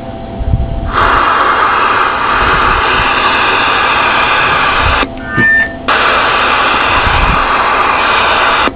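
CB radio receiver static hissing from its speaker on an open channel, starting about a second in and breaking off briefly around five seconds in.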